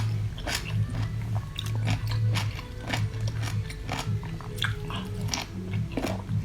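A person chewing and biting into cooked seafood: wet smacking and crunchy clicks, about two a second, over a steady low hum.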